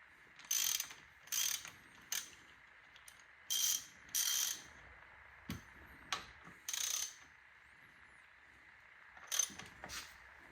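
Hand ratchet wrench clicking in short runs of strokes with pauses between them, working the bolts on a dirt bike's front fork clamps.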